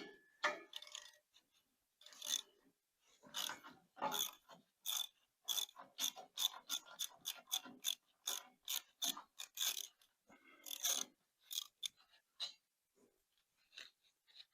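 Hand ratchet clicking in irregular short runs, as the bolts holding down a tractor's exhaust pipe are worked.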